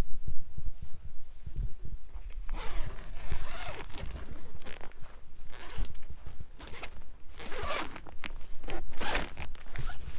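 A zipper being pulled in several strokes of varying length, the longest starting about two and a half seconds in.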